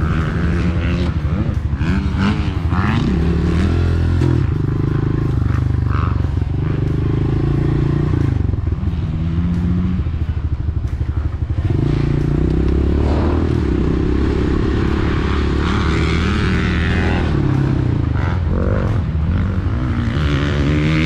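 Honda CRF125F's single-cylinder four-stroke engine running as the bike is ridden, its pitch rising and falling over and over with the throttle.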